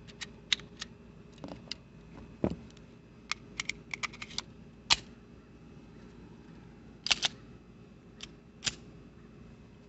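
Metallic clicks and clacks from handling a Taurus 1911 .45 pistol and its 10-round extended magazine: a round pressed into the magazine, the magazine pushed into the grip with a quick run of clicks and a loud click about five seconds in, then a sharp double clack about seven seconds in.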